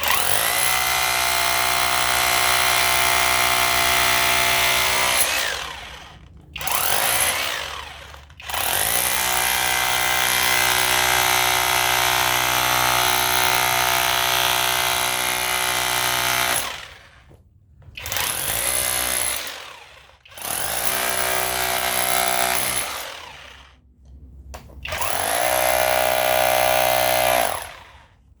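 Cordless rotary hammer in hammer mode breaking cast concrete, running off a homemade 21700-cell 5 Ah battery pack. It runs in six bursts, two long ones of five to eight seconds and four short ones, each winding down with a falling pitch as the trigger is released.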